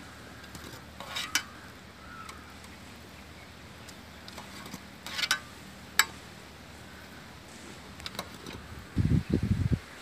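A few sharp metallic clinks from a steel bowl and a wire strainer being handled, over a steady background hiss. Near the end comes a burst of loud, low, dull thuds.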